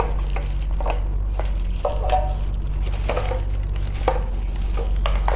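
Hard plastic parts of a spice rack being handled: scattered clicks and knocks, roughly one a second, some with a brief ring, over a steady low hum.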